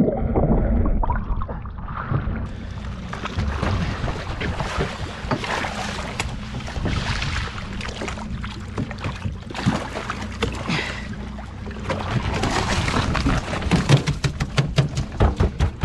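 Muffled underwater sound from an action camera in the sea, which opens out about two seconds in into the hiss and splash of water and wind on the microphone once the camera is out of the water. A low steady hum from the boat's outboard motors runs underneath, and near the end comes a quick run of crackling knocks.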